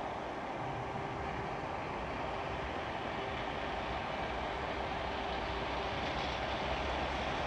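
Diesel locomotive approaching on the line, its engine rumble and wheel noise growing steadily louder as it nears.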